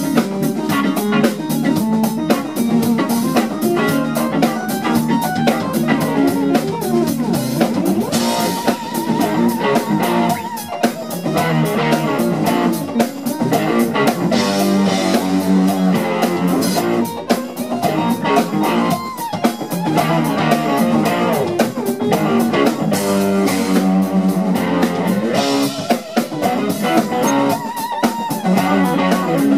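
Live funk band playing an instrumental: an electric guitar lead over a drum kit groove, with held, wavering notes a few times.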